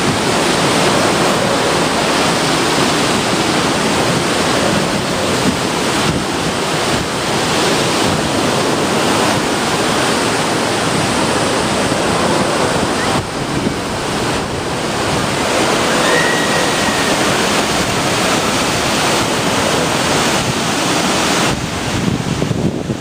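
Ocean surf washing onto the beach, with strong wind buffeting the microphone.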